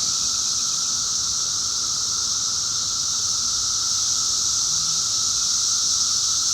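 Chorus of 17-year periodical cicadas: a loud, steady, unbroken droning buzz.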